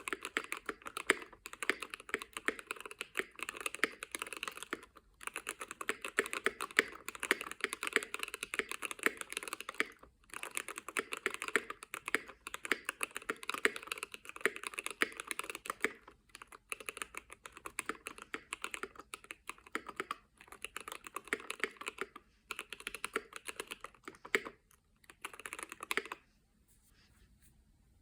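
Keychron K8 Pro mechanical keyboard with Gateron Red linear switches and lubed stabilizers being typed on in fast, continuous runs of keystrokes. The runs break off briefly every few seconds, with a longer pause near the end.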